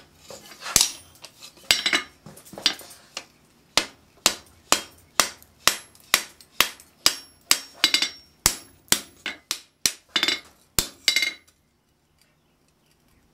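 Blacksmith's hand hammer striking a red-hot steel flat bar on the anvil, knocking in the bar's corners. The blows come steadily at about two a second, some with a short metallic ring, and stop about a second and a half before the end.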